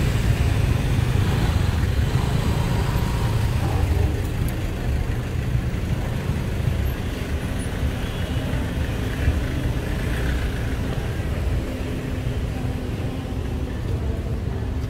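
Road traffic: a steady low rumble of vehicles running and passing along a busy city street.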